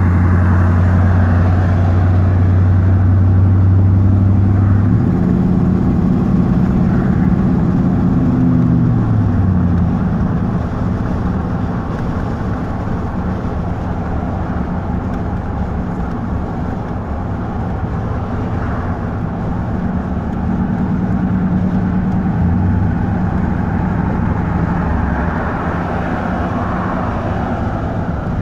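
Exhaust drone of a 1990 Chevrolet K1500's 5.7 L 350 V8, heard from inside the cab while the truck drives, through a new exhaust with a dual-in/dual-out muffler and no catalytic converter. The note holds steady, then drops gradually in pitch from about five seconds in as engine speed falls, and settles into a lower, steady drone.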